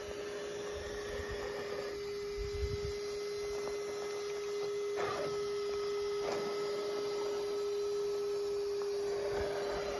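RC rock crawler's electric motor and drivetrain whining at a steady pitch as it crawls slowly over rock, growing stronger after about two seconds. There are a couple of faint knocks about five and six seconds in.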